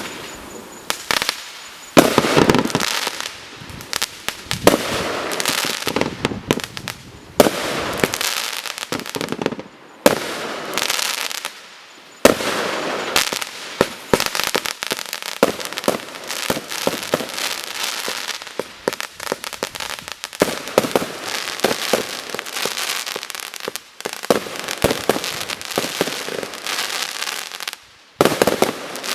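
Large display fireworks, multi-shot cakes and barrages, firing in rapid bangs and crackle. The sound breaks off abruptly a few times and starts again straight away.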